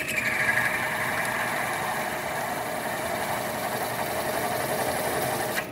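Milling machine spindle driving a twist drill through weld metal in a steel sprocket bore, with a slow feed and no coolant. A steady cutting hiss and whine rides over the machine's hum, brightest at first, then cuts off suddenly near the end as the drill stops cutting.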